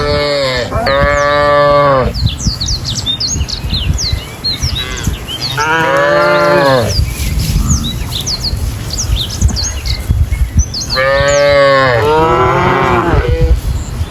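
Cattle mooing: long moos about a second in and in the middle, and near the end two moos that overlap. Small birds chirp throughout.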